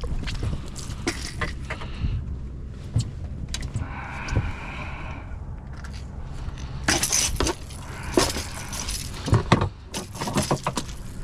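Clicks, knocks and metallic rattles from handling on a small boat's deck, with louder bursts of clatter about seven and nine seconds in, over a low steady rumble.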